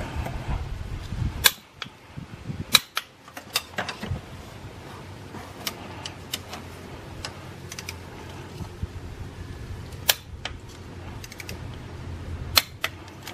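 Click-type torque wrench ratcheting and clicking on the starter's mount bolts as they are torqued to 29 foot-pounds: a cluster of sharp metallic clicks in the first few seconds, then a few scattered ones.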